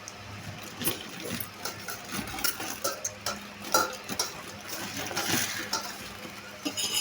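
Cutlery clinking and scraping against a dish during eating, as scattered short clicks with a quick run of them near the end.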